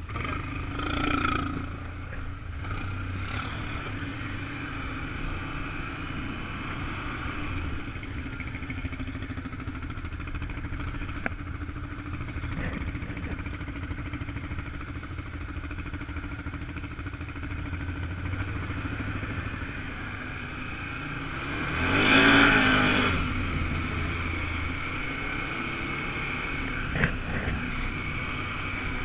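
ATV engine running steadily with a constant drone, pulling away from idle onto the trail. About two-thirds of the way through there is a louder rushing swell lasting a second or so, and a short sharp click near the end.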